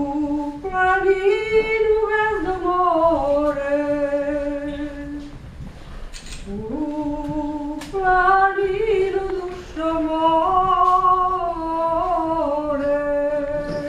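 A woman singing a Serbian folk song unaccompanied, in two long phrases of drawn-out held notes that step up and down in pitch, with a short breath between them.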